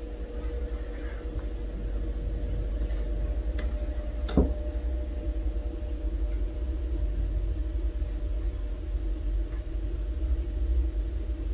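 Steady low rumble with a faint hum, and a single sharp click about four and a half seconds in.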